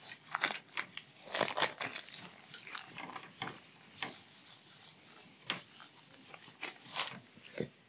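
Whiteboard duster wiping across a whiteboard in a run of short, irregular rubbing strokes.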